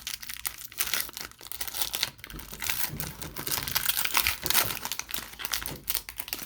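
Trading-card pack wrapper being torn open and crinkled by hand: a dense, irregular run of crackles and rustles.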